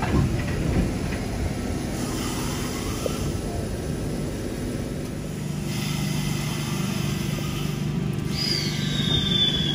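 Stainless-steel double-deck electric passenger train alongside the platform, giving a steady low hum from its motors and running gear. A high whine glides slowly downward near the end.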